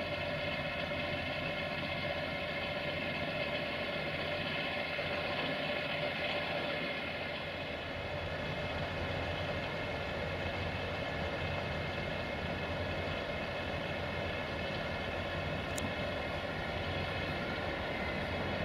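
Diesel engine of a UAM215-MB rail draisine idling with a steady, even hum. About eight seconds in, a similar steady machine hum carries on as an electric shunting locomotive approaches.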